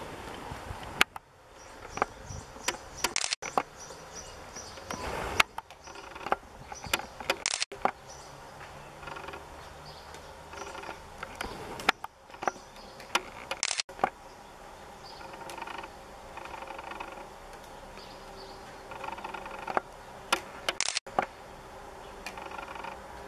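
Garden ambience: a buzz that comes and goes a few times, over frequent sharp clicks and taps.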